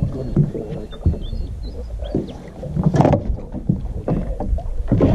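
Wind buffeting the microphone over water lapping at a boat hull, with scattered knocks on the deck. About three seconds in there is a sharp splash as a hooked Murray cod thrashes at the surface beside the boat.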